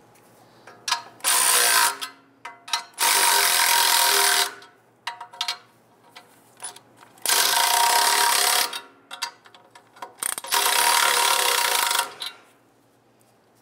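Exhaust band clamp nuts being run down with a powered ratchet: four whirring bursts of one to two seconds each, with a few small clicks between, as the clamp is tightened down evenly.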